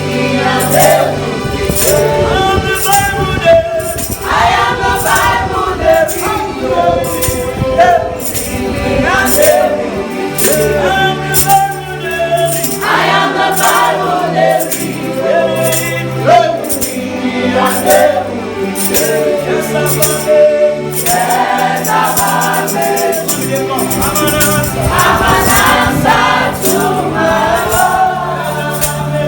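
Congregation singing a gospel worship song together over a steady bass line, with a tambourine or similar shaker keeping a regular beat.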